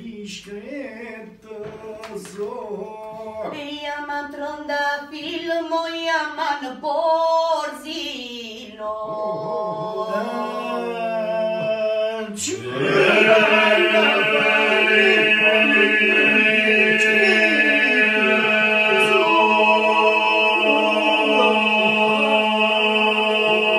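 Unaccompanied group singing in the southern Albanian iso-polyphonic style. A lead voice sings a bending melody, a low held drone (the iso) comes in about nine seconds in, and about thirteen seconds in the whole group joins loudly, sustaining the drone under the upper voices.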